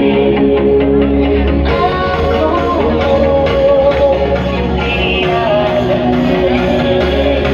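Loud dance music with singing, played from DJ decks through a sound system, with heavy steady bass; about two seconds in the treble suddenly opens up and the mix turns brighter.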